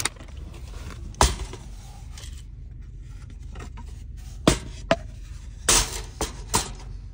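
Kitchen knife chopping a mushroom on a wooden cutting board: a few sharp knocks, most of them in the second half, over a steady low hum.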